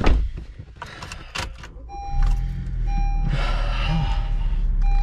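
A few clicks and knocks, then about two seconds in a car engine starts and runs steadily while the car's warning chime beeps on and off.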